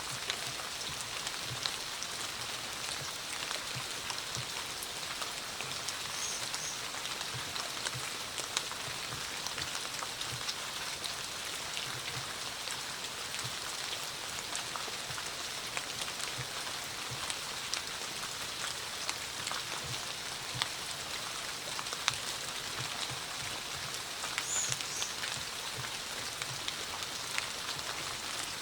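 Steady rain falling, with many separate drops ticking on surfaces. Two faint brief high chirps sound over it, a few seconds in and near the end.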